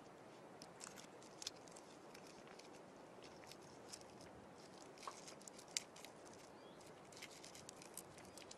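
Faint, scattered small clicks and crackles of a Siberian chipmunk working at a pine cone and chewing pine nuts, over a low hiss. A couple of sharper cracks stand out, about a second and a half in and past the middle.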